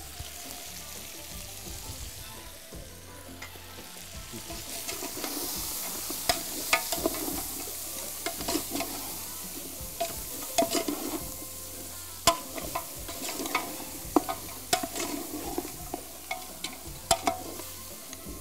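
Meat, tomato and spices frying in a large metal pot, sizzling as a ladle stirs them, with the ladle scraping and knocking against the pot in frequent sharp clicks. The sizzle grows louder about four seconds in.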